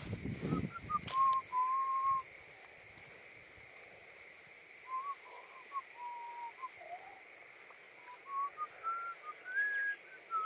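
A person whistling a tune in clear, held notes, climbing in pitch near the end, with a knock of handling noise about a second in.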